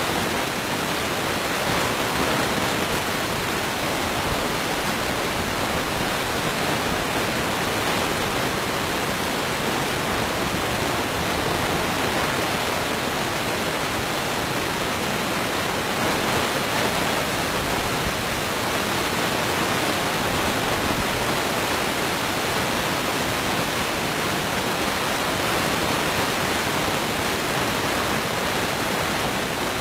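A loud, steady, unchanging hiss like static, spread evenly from low to high pitches; no hyena calls or other distinct sounds stand out.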